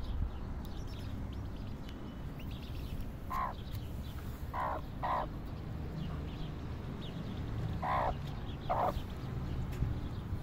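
Five short, harsh bird calls: one about three seconds in, a pair around five seconds and another pair around eight seconds, over faint high peeping of chicks.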